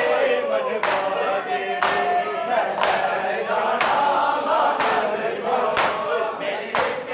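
Male mourners chanting a noha (mourning lament) in chorus, with a sharp unison chest-beat (matam) about once a second keeping time.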